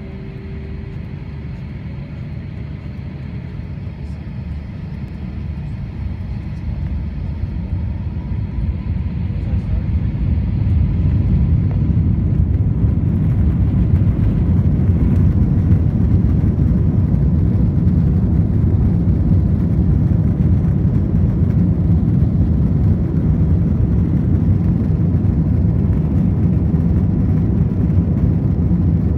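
Airbus A321 cabin noise from a seat over the wing: the jet engines' deep rumble grows louder over about the first ten seconds, then holds steady.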